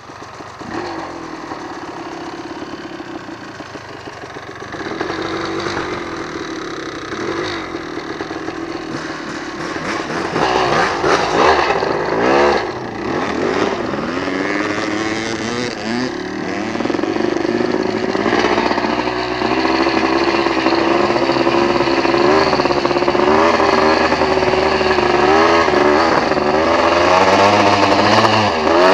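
Dirt bike engine revving up and down, its pitch rising and falling and growing louder over the second half.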